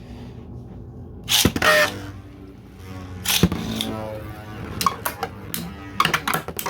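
3D-printed Beyblade spinning tops battling in a stadium: two loud clashes with a falling whir after each, then a quick run of clicking hits near the end.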